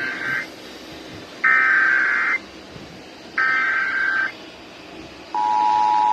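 Emergency Alert System header: SAME data bursts of digital warbling tones, each about a second long with a second's gap between them. The first is ending as the sound begins, and two more full bursts follow. About five seconds in, the steady two-tone EAS attention signal starts, marking the opening of an EAS test message.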